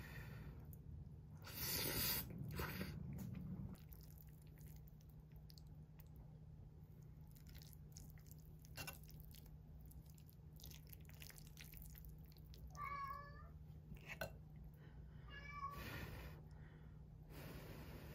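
A house cat meowing twice, short calls about three seconds apart past the middle, among soft eating noises of chopsticks and chewing. A brief louder burst of noise comes a couple of seconds in.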